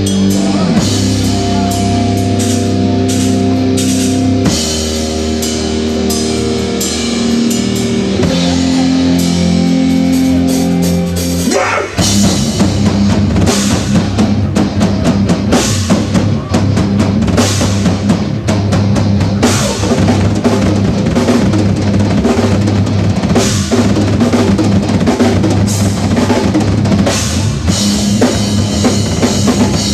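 Rock band playing: held chords over drums for about twelve seconds, then the band breaks into a busier section with pounding drums and crashing cymbals.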